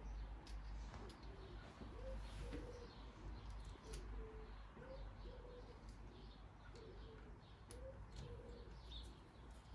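A pigeon cooing, a run of short, low coos repeating every half second to a second, with a few faint clicks and a steady low hum underneath.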